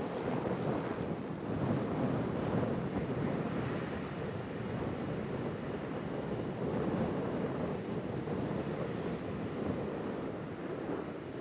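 Jet airliner engines, a steady broad roar with wind on the microphone, easing slightly near the end.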